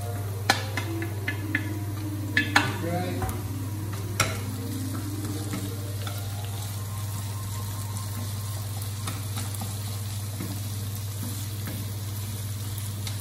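Boiled cauliflower florets dropped into a frying pan of hot oil with sautéed onion, garlic and anchovies, sizzling, with several knocks and clatters of the steel colander and wooden spatula against the pan in the first four seconds. After that the florets are stirred and keep sizzling steadily.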